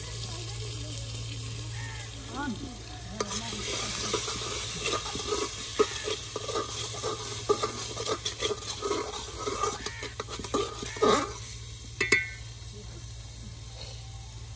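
Tadka for saag (garlic, green chillies, tomato and spices) sizzling in hot oil in a pan while it is stirred, the spoon scraping and clicking against the pan. The stirring is busiest from about three to eleven seconds in, with one sharp knock just after.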